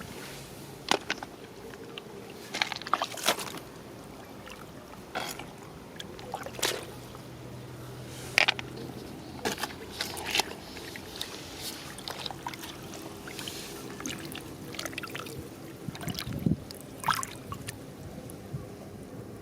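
Water splashing and sloshing, with irregular sharp clicks and knocks scattered through.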